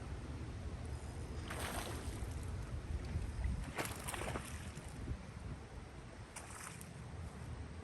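Steady low rumble of wind and water at the microphone, with short noisy bursts about two seconds apart, the loudest about four seconds in.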